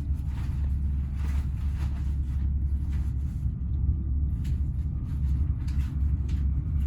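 Steady low rumble of a small regional train running, heard from on board.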